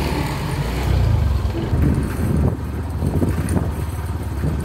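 Small motor scooter engines running steadily as the riders go along a rough, rocky dirt track.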